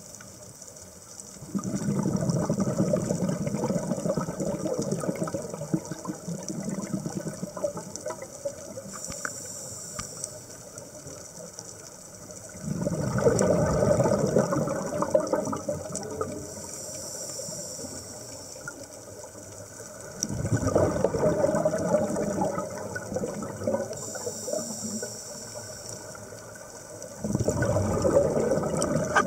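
Scuba diver breathing through a regulator underwater: four long rumbling bursts of exhaled bubbles, about seven seconds apart. Before each one there is a softer high hiss of the regulator on the inhale.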